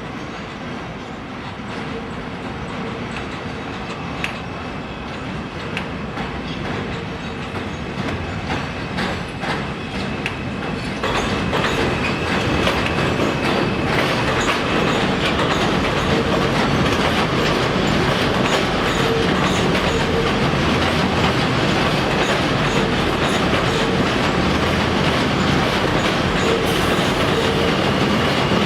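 N/Q subway train running past on the adjacent elevated Astoria line, a continuous rumble and rail clatter with faint steady whining tones. It gets markedly louder about eleven seconds in and stays loud.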